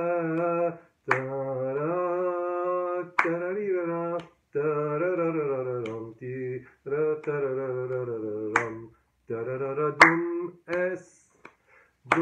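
A man singing a muwashshah melody in long held notes on wordless syllables, while his hands clap the uneven dum-tak pattern of the 13/4 Murabba' rhythmic cycle. The singing stops about 11 seconds in, leaving a few more claps.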